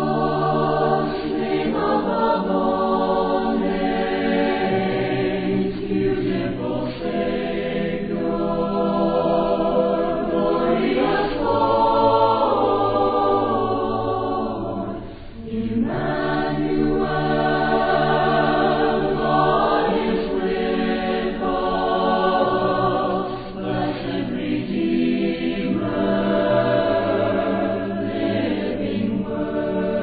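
A choir singing a hymn a cappella: several voices in sustained harmony, with a brief break in the singing about fifteen seconds in.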